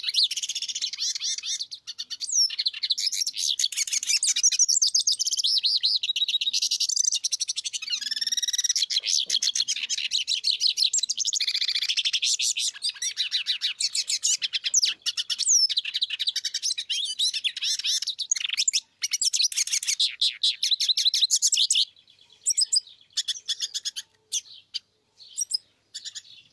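Caged finches, a hooded siskin and a siskin-canary hybrid ('mulo'), singing: a long, fast, high twittering warble with brief breaks. Near the end the song stops and only scattered short chirps remain.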